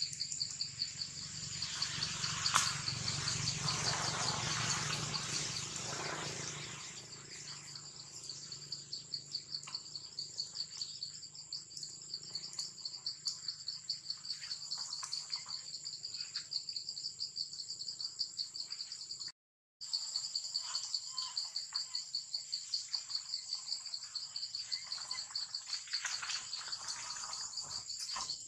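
A steady, high-pitched chorus of forest insects, trilling with a fast pulse. A broad rustle sits over it for the first six seconds or so. The sound cuts out completely for about half a second a little past two-thirds of the way through.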